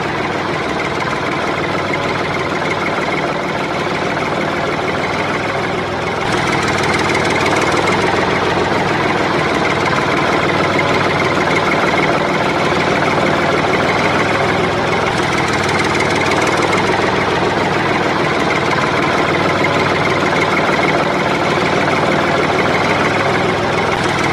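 Engine running steadily, a little louder from about six seconds in.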